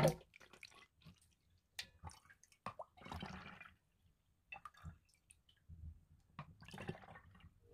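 A ladle scooping milky shindari (fermented barley drink) out of a metal bowl: faint drips and small splashes, with a few light clicks.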